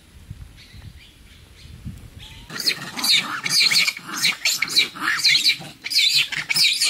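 Monkeys calling in a dense run of shrill, rising-and-falling calls that start suddenly about two and a half seconds in, after a quieter stretch of low background noise. These are the calls of a conflict between rival troops.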